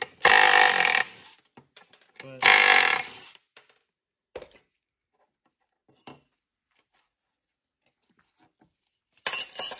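Cordless impact driver run in two short bursts of about a second each, one just after the start and one about two and a half seconds in, with another loud burst near the end.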